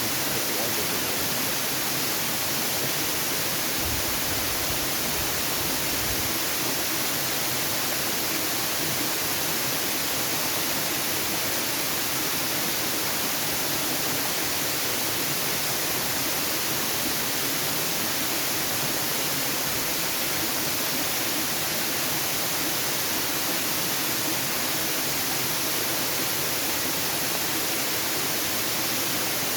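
Waterfall: a steady rush of falling water that holds an even level throughout, its hiss strongest in the high end.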